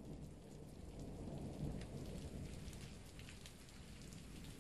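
Rain falling with a low roll of thunder. The thunder is strongest in the first two seconds and then slowly dies away, while scattered drops keep ticking over it.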